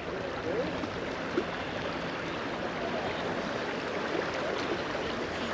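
Steady rush of river current flowing past, with faint gurgling.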